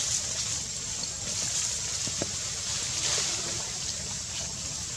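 Steady outdoor background noise: a low rumble with a thin, steady high whine above it and a few faint ticks.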